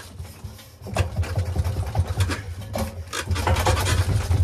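Drum of a Vestel-made washing machine being spun and shaken by hand, rumbling and clattering in bursts with sharp knocks. The rattle comes from a loose concrete counterweight, a common fault on Vestel-made machines.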